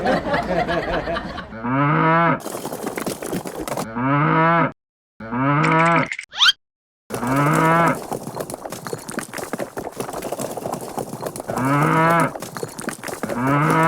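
A cow mooing repeatedly: six calls of about a second each, every one rising in pitch and then holding, over a steady noisy background.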